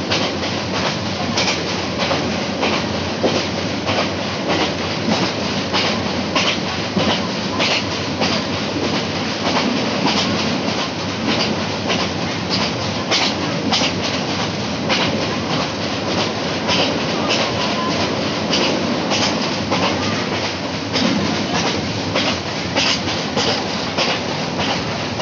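Passenger train running at speed, heard from a coach window: a steady rumble and rush of noise, with the wheels clacking sharply and unevenly over the rails.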